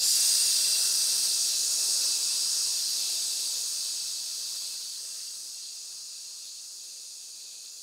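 A long, sustained "sss" hiss made into the microphone and run through a de-esser plugin (Techivation T-De-Esser) whose threshold is being pulled down. The sibilance is being cut harder as the threshold drops, so the hiss fades steadily quieter.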